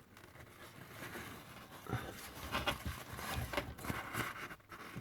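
Paper kitchen roll rustling and scraping as it is pushed and dabbed into the water in the dishwasher's base well, with irregular small clicks and knocks, busiest in the second half.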